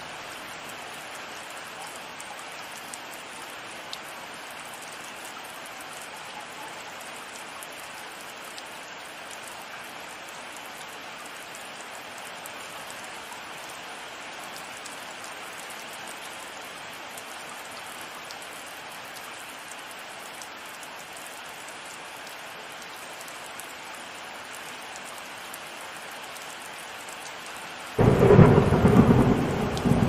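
Steady heavy rain falling, then about two seconds before the end a sudden loud thunderclap breaks in and rumbles on.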